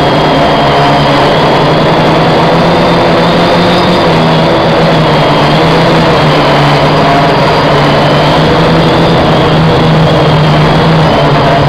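Quadcopter's electric motors and propellers heard from its own onboard camera: a loud, steady buzz whose pitch wavers slightly as the motors adjust to hold the aircraft in the air.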